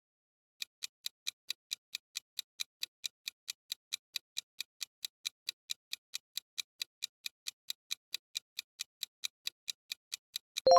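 Clock-ticking countdown sound effect: evenly spaced ticks, about four a second, ending in a bright ringing chime at the very end.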